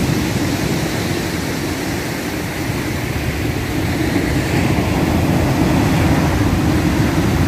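Storm surf breaking and washing up the beach in a continuous loud rushing noise, swelling a little past the middle.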